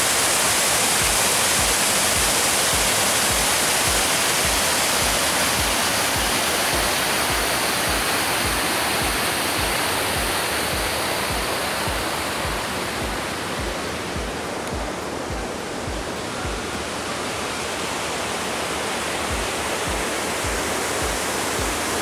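Steady rush of a waterfall cascading over rock ledges, with a regular low beat of background music under it.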